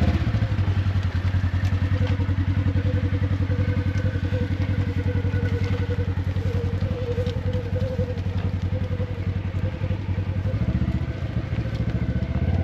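ATV engine running steadily at low speed, an even fast pulse with a low rumble and a faint wavering whine above it, easing off slightly near the end.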